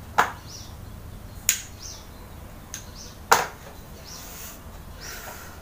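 Three sharp snaps, the first two about a second and a quarter apart and the third about two seconds later, with a weaker one just before the last. Short, faint, high chirps, like small birds, come between them.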